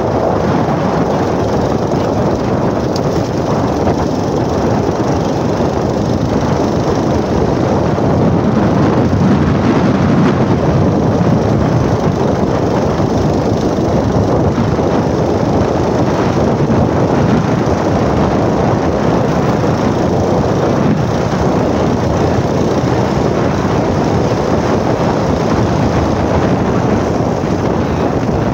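Motorcycle running steadily as it rides over a rough dirt track, with wind rushing over the microphone.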